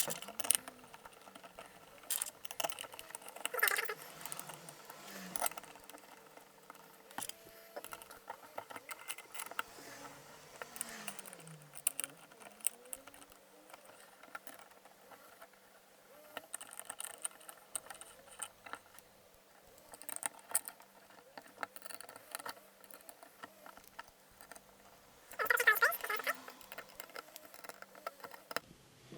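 Small handling noises as plastic and metal water-cooling pump parts are fitted together by hand: scattered light clicks, taps and rubbing, with a few faint squeaks, and a louder stretch of handling noise near the end.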